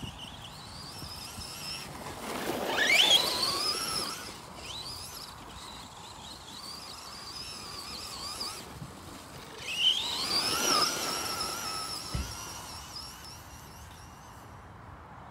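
Traxxas Slash 4x4 RC truck's Hobbywing Max10 SCT 3200kv brushless motor and drivetrain whining, sweeping up in pitch as it accelerates hard twice, with a fainter wavering whine between the runs. A brief low thump comes near the end.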